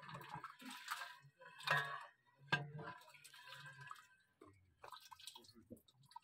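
Liquid sloshing and dripping as a long-handled metal skimmer stirs and lifts meat out of a large aluminium pot of gravy, with a sharp knock of metal about two and a half seconds in.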